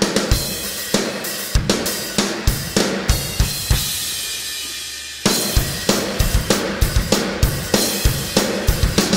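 Isolated drum kit track from a rock recording, with kick, snare, hi-hat and cymbals playing a steady beat. About three and a half seconds in, the hits stop and a cymbal rings and fades for nearly two seconds. A loud crash then brings the beat back in.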